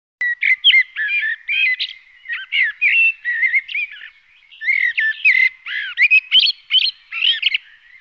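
A songbird singing a continuous, varied song of quick slurred whistles and chattering notes, with brief lulls about two and four seconds in.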